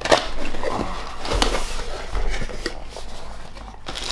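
A cardboard box being opened by hand: sharp scrapes and knocks as the lid is lifted and the flaps are folded back, with a few soft thuds about a second and a half in.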